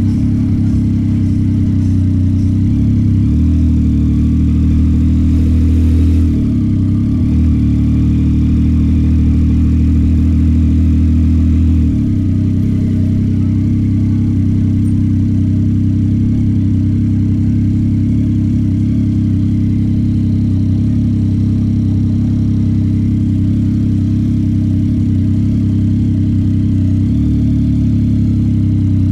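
Yamaha MT-09 SP's inline three-cylinder engine running steadily at low revs while riding. Its note changes step-wise a few times, about three, six and twelve seconds in.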